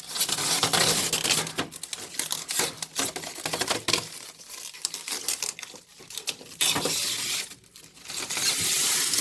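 Thin protective plastic film, like saran wrap, being peeled and ripped off a new refrigerator, crinkling and tearing in irregular loud rustles.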